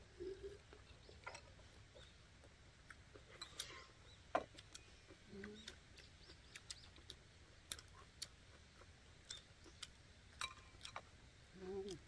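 Faint eating sounds at a meal table: scattered small clicks and taps of chopsticks against glass and wooden bowls, with a few short low hums of a voice near the start, in the middle and at the end.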